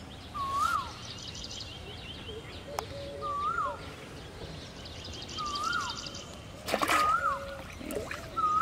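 A bird calling over and over, a short note that rises then drops, about every two and a half seconds, with a fast chattering trill in the background at times. Near the end a brief rush of noise, the splash of the float and line as the fishing rod is jerked up to strike a fish.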